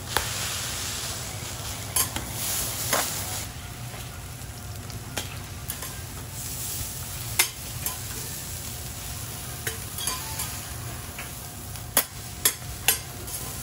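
Food sizzling on a flat steel teppan griddle as Hiroshima-style okonomiyaki and eggs fry, a steady hiss. Sharp clacks of metal spatulas striking and scraping the griddle come every few seconds, three in quick succession near the end.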